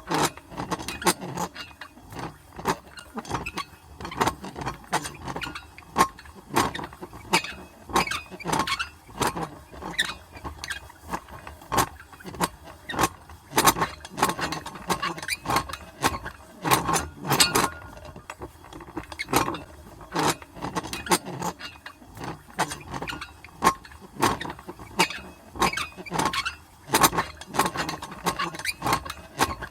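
An old metal crank wheel being turned at medium speed, clanking and clicking irregularly several times a second with a metallic ring.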